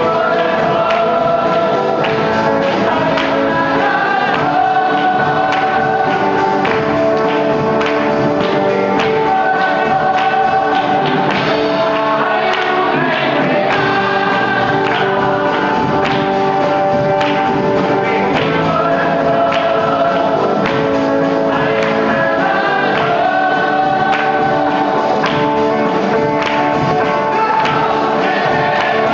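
Gospel music: a choir singing over a steady percussion beat.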